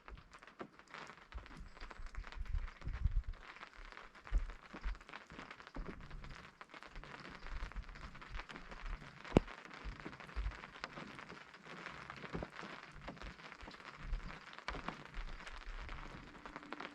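Light rain falling on a tent: a steady hiss of drops with many separate drop hits on the fabric, and one sharper, louder hit about nine seconds in.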